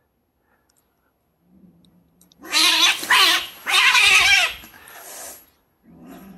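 Two cats fighting: a low growl, then two loud caterwauling yowls as they grapple, trailing off, and a low growl again near the end.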